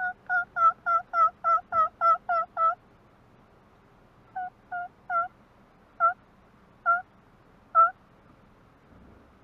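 Turkey yelps: a quick run of about ten yelps in the first three seconds, then about six more spaced out with longer gaps, calling to a jake that does not answer.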